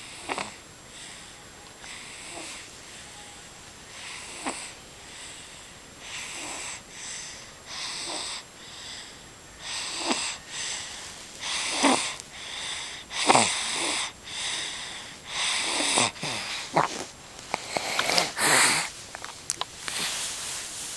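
Baby snoring in her sleep: quick, wheezy breaths about one a second, growing louder in the second half, with a few sharper snorts mixed in.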